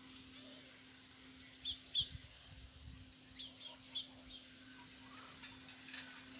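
Faint small-bird chirps, a handful of short high notes, some in quick pairs, between about one and a half and four and a half seconds in, over a low steady hum.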